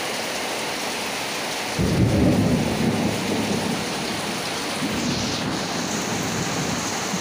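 Heavy rain pouring onto floodwater, with a sudden rumble of thunder about two seconds in that fades away over the next few seconds.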